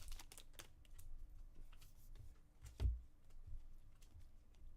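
Trading cards being handled and flipped through by hand: faint light clicks and rustles, with one soft thump almost three seconds in.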